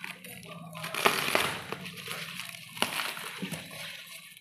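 Packing material rustling and crackling as a parcel is unpacked by hand, with a few sharp clicks; it is loudest about a second in.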